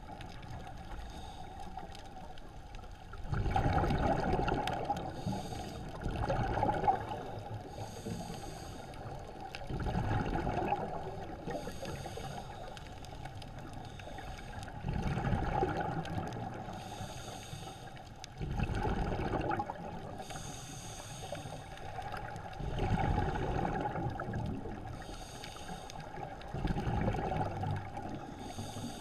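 Scuba diver breathing through a regulator underwater: a rumbling rush of exhaled bubbles about every four seconds, with a hissing inhale between them.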